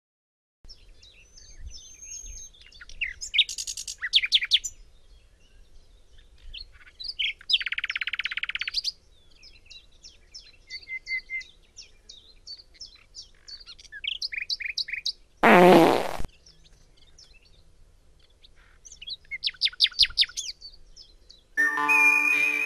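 Birds chirping and singing throughout, with a rasping buzz about eight seconds in. About fifteen seconds in comes a loud fart, falling in pitch and lasting under a second. Music starts near the end.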